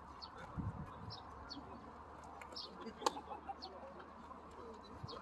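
Short high bird chirps repeating every half second or so over faint open-air background noise, with one sharp smack about three seconds in.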